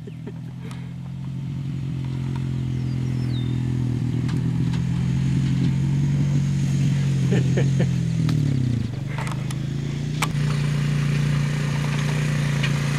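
An ATV's engine running at low speed, growing louder over the first several seconds as it comes closer. Its pitch drops briefly about nine seconds in, then it settles steady again. A few light clanks come around the middle.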